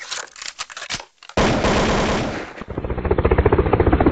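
Gunfire: scattered single shots, then a sudden loud burst about a second and a half in, followed by rapid automatic fire at about ten rounds a second.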